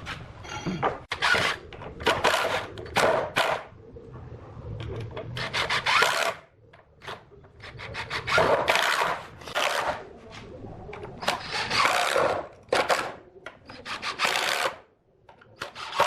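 A hand tool worked over wood in a series of irregular scraping strokes, each about half a second to a second long, with short pauses between them.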